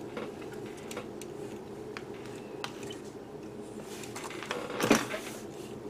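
Faint handling noise from a plastic model kit being turned by hand on a cutting mat: light clicks and taps over a steady low hum, with a short, louder rustle about five seconds in.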